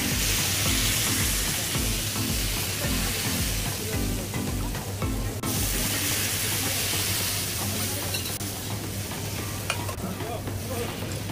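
Rava dosa batter sizzling as it is poured in thin streams over a hot dosa griddle. The sizzle is loud at first, cuts off abruptly about five seconds in, resumes, then slowly dies down. Background music with a steady low beat plays under the first half.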